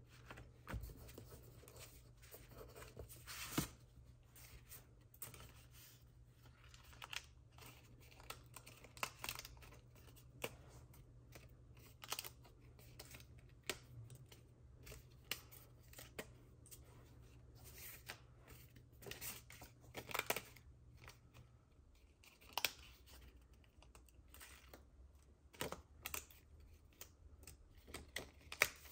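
Paper and card stock being handled and worked at a craft table: irregular rustling, taps and sharp clicks. A low steady hum runs underneath and cuts out about three-quarters of the way through.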